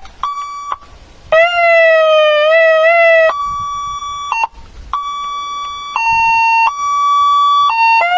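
100-watt car siren-and-loudspeaker unit (a 'kryakalka') sounding loudly through its horn speaker as it is switched through its siren tones: a short beep, a wavering siren wail, then steady tones that turn into a high-low two-tone alternation with each note held about a second.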